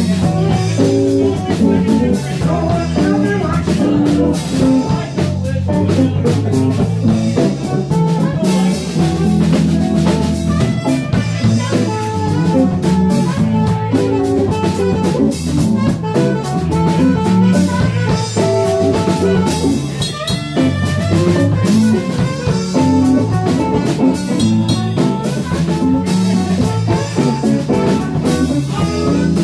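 Live band playing an instrumental stretch: drum kit, electric guitar and Fender bass together, at a steady full level.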